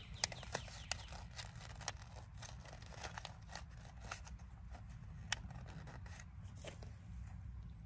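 Irregular crisp crackles and clicks, several a second with a few sharper ticks, from dry wood-chip mulch and soil being disturbed during seed planting.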